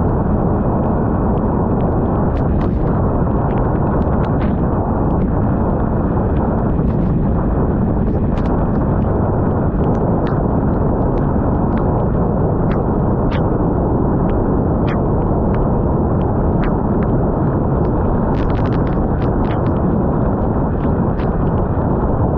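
Wind buffeting a GoPro Hero 9's microphone in the rain, a loud steady rumble, with scattered sharp ticks of raindrops striking the camera, a cluster of them near the end.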